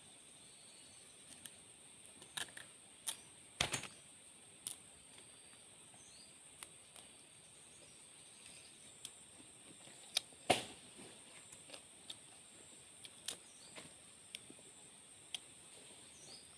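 Irregular sharp snaps and clicks, a couple of them louder, about four and ten seconds in, over a steady high-pitched drone of insects in forest.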